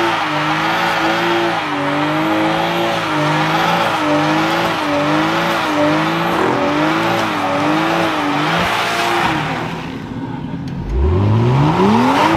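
Car engine held at high revs through a burnout with the tyres spinning, its pitch wavering up and down. It drops away about nine seconds in, then revs sharply back up and holds high again near the end.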